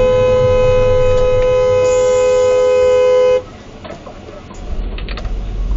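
Car horn held in one long, steady blast that cuts off suddenly about three and a half seconds in, leaving road noise: a warning honk at a driver who failed to yield.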